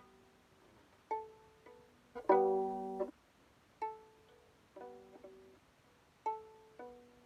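Viola's open strings plucked one or two at a time, each note ringing and dying away. A little after two seconds in comes one short, louder bowed sounding of two strings together.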